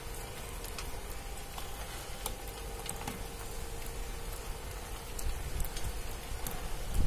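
Metal honeycomb (flat wire) conveyor belt running: a steady rattling hiss from the links, scattered light clicks and a faint steady hum underneath.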